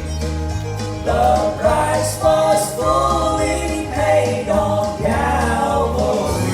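Gospel song: sung voices over instrumental accompaniment with a steady bass line; the voices come in about a second in.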